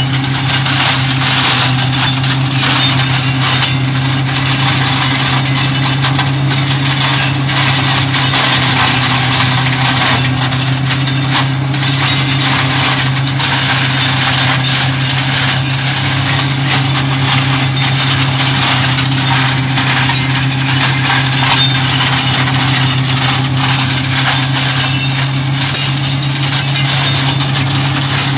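New Holland TT50B tractor running steadily under load while driving a PTO flail mulcher that shreds pruned vine canes. A constant low engine hum sits under a dense rushing noise from the mulcher's spinning rotor and the chopped canes.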